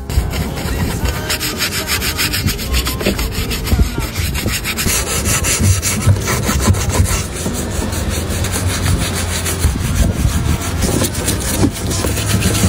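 Fast, repeated scraping strokes, like a saw or scraper worked back and forth by hand.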